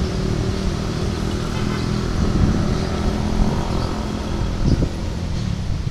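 Diesel-electric locomotive hauling a passenger train on the approach, its engine running with a steady low drone.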